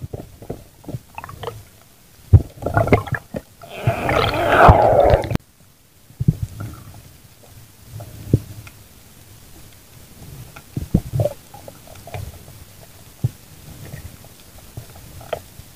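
Muffled underwater noise heard by a night diver's camera: a loud, rushing stretch about two seconds in that cuts off abruptly, then faint scattered clicks and knocks.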